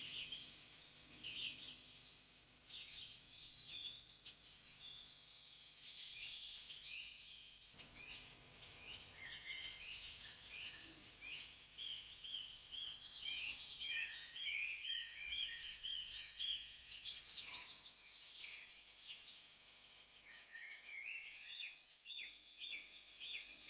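Birds chirping and calling, a busy, continuous stream of short high chirps and trills over one another.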